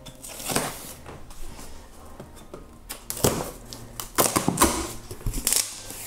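Packaging being pulled out and handled inside a cardboard box: irregular scrapes, rustles and knocks, with several louder ones in the second half.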